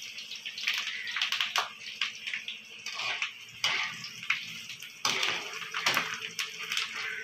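Cauliflower florets and curry leaves deep-frying in hot oil in a kadai: a steady sizzle with a few sharp crackles.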